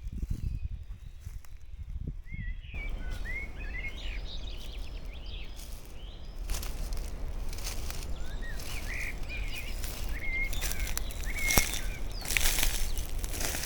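Several songbirds chirping and singing over a steady low outdoor rumble, with a few short knocks in the second half.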